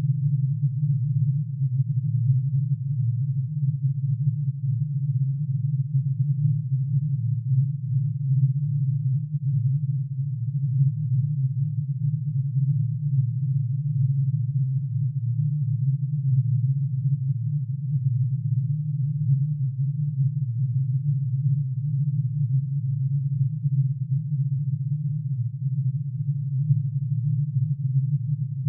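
Synthesized drone made of many summed sine tones, one for each line of plutonium's atomic emission spectrum pitch-shifted into hearing range. It is a steady, low, dense hum that flickers slightly and does not change.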